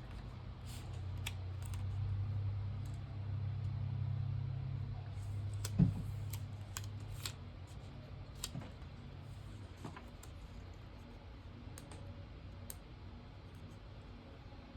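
Scattered light clicks and taps of paper planner stickers and supplies being handled on a desk, the sharpest about six seconds in. A low steady hum runs underneath and fades away about halfway through.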